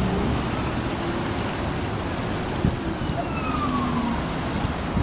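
Steady rushing noise of wind buffeting the microphone beside a swollen, fast-flowing river. There is a single bump about two and a half seconds in, and a faint tone falling in pitch a little after it.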